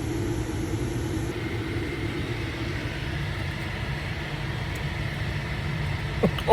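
Steady low rumble of a car engine idling, heard from inside the parked car's cabin.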